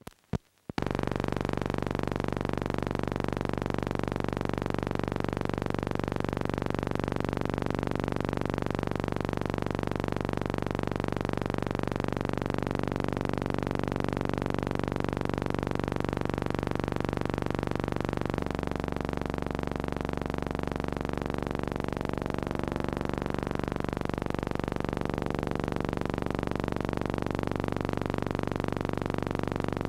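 A steady, unbroken drone made of several steady low tones layered together, which shifts slightly in pitch about two-thirds of the way through.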